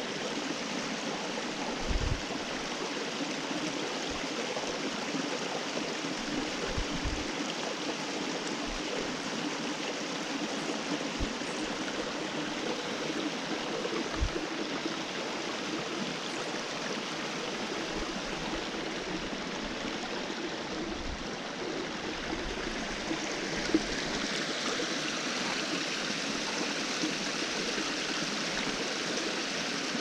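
Rain-swollen creek running fast over rocks: a steady rushing of water that gets a little louder and brighter about three-quarters of the way through. A few brief low knocks sound in the first half.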